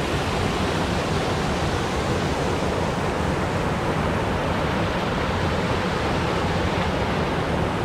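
Steady rush of fast-flowing water from a mountain stream and falls, a strong current.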